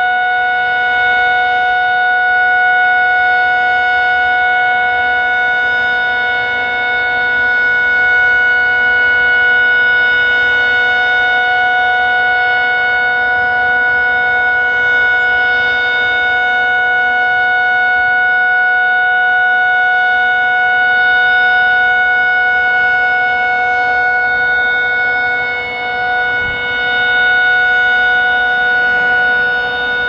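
Federal Signal 2001-SRNB electronic warning siren sounding the steady Alert signal: one loud, unchanging tone with no rise or fall in pitch.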